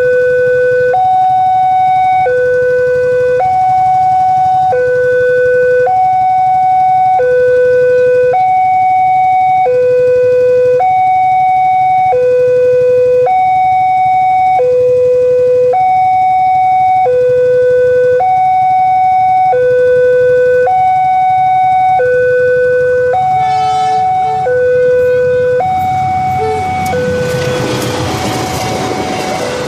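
Railway level-crossing warning alarm sounding a two-tone electronic signal, alternating a higher and a lower tone about once a second, warning of an approaching train. Over the last few seconds the noise of the oncoming train rises beneath it.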